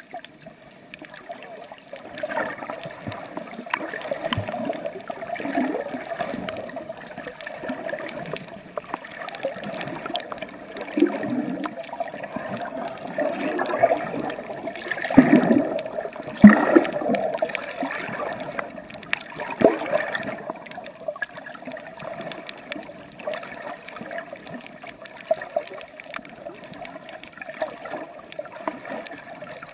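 Water sloshing and gurgling around a camera being swum along underwater while snorkeling, in irregular surges that are loudest about halfway through, over a steady hum.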